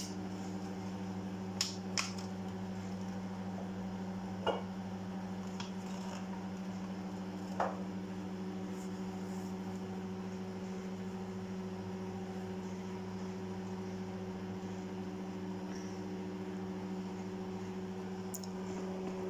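Microwave oven running on high, heating a mug of milk: a steady electrical hum, with a few light clicks in the first eight seconds.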